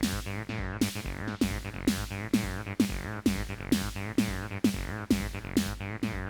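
Roland T-8 beat machine playing an electronic drum-and-bass pattern: a steady beat of about two hits a second, each carrying a note that sweeps down in pitch, over a continuous bass line and crisp high percussion.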